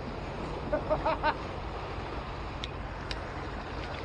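Sea washing against the jetty's concrete blocks, with wind rumbling on the microphone. About a second in comes a quick cluster of short pitched calls, and near the end a couple of sharp clicks.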